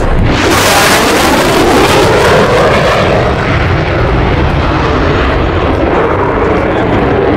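Jet aircraft flying past: a loud rush of jet noise that comes in suddenly, its high hiss easing off after about three seconds while the low rumble goes on.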